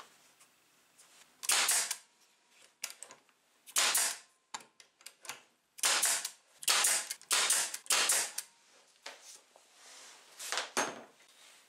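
Pneumatic nail gun firing into wooden slats, driving fasteners to build the drill's holder: a series of about seven loud, sharp shots at irregular intervals, with a few fainter clicks between them.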